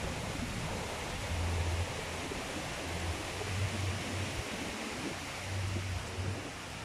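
Steady rushing of a rocky river, with a few low rumbles of wind on the microphone.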